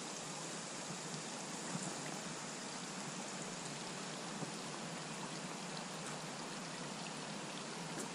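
Steady, even hiss of water, with a few faint ticks like drops.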